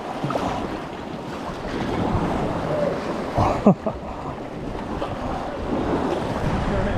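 Sea kayak paddling in choppy sea: paddle strokes and water lapping and splashing against the hull, with wind on the microphone. About halfway through, a brief louder scrape as a wet waterproof jacket sleeve brushes across the camera.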